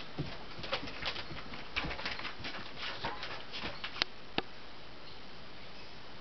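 A black bear cub's claws scratching and clicking on tree bark as it climbs: an irregular run of short scratches over the first four seconds, with the sharpest click about four seconds in, then only a steady hiss.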